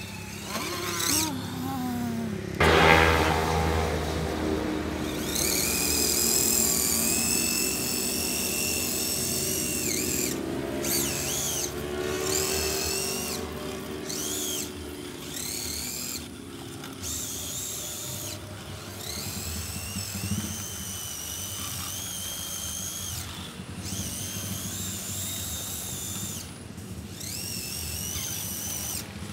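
Electric motors and gearboxes of RC scale crawlers whining, the pitch rising and falling as the throttle is worked on and off in short pulses during a steep climb. The loudest stretch is about three seconds in.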